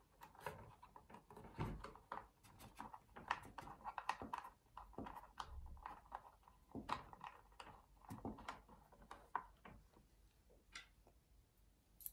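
Faint handling noise from a small screwdriver working the screws of a TDK A73 boombox's side plate: irregular scraping and clicking of metal in the screw heads, with light knocks as the unit is moved.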